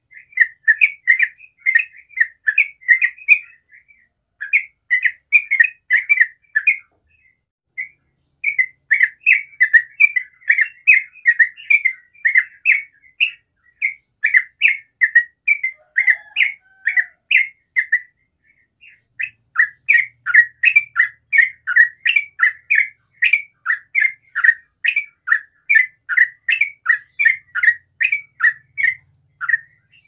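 Yellow-vented bulbul singing its rapid, run-on 'ropel' song: long fast strings of short bubbly notes, several a second, broken by brief pauses about 4, 7 and 18 seconds in.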